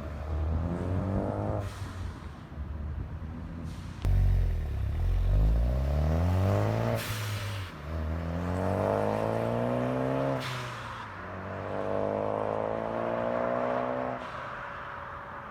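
Turbocharged Ford Focus ST with its exhaust resonator deleted and replaced by a straight 3-inch pipe, accelerating hard. The engine note climbs several times with short breaks between gears. There is a sudden jump to a louder pull about four seconds in.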